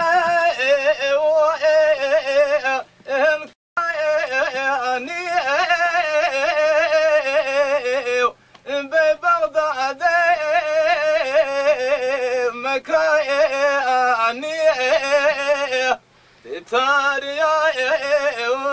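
A man singing a slow, unaccompanied folk melody in long held phrases, his voice wavering and ornamented, with breaks for breath about three and a half, eight and a half and sixteen seconds in.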